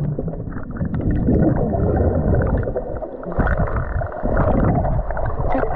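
Muffled underwater sound of a swimmer moving through a pool, with gurgling air bubbles breathed out through the nose, picked up by a camera held underwater. The rumble drops out briefly about three seconds in.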